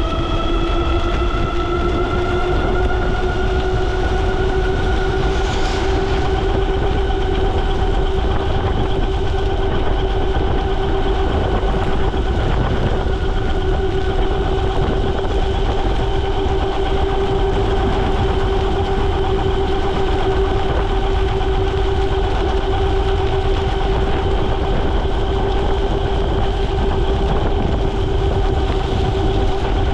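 Ariel Rider Grizzly e-bike's hub motor whining under power, its pitch rising over the first few seconds as the bike speeds up to about 33 mph, then holding steady. Underneath is a steady rush of wind and tyres on the wet road in the rain.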